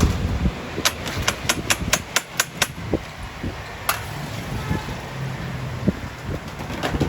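A quick run of about eight sharp taps or clicks in under two seconds, then a single tap a little later, over steady background noise.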